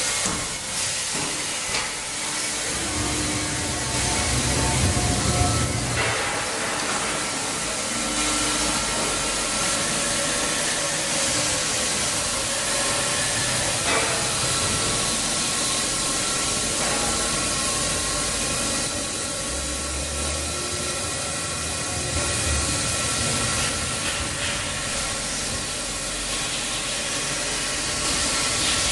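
Chiron gantry-type milling machine running under power: a steady hiss with faint high, steady tones. A deeper hum swells twice for a few seconds.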